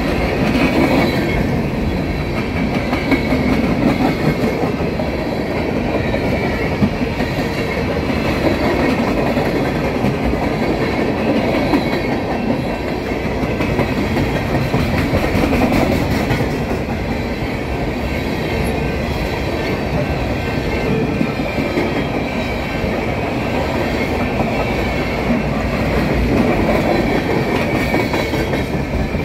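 Steel coal cars of a long freight train rolling past at close range: a steady rumble and clatter of steel wheels on the rails that keeps going throughout.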